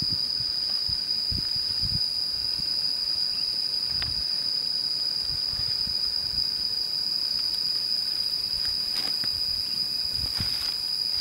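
Steady high-pitched drone of insects, with scattered soft thumps as peppers are handled on a banana leaf.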